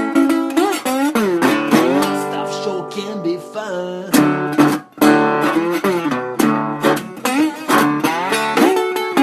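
Blues slide guitar solo: plucked and strummed notes with sliding glides in pitch, breaking off briefly about five seconds in.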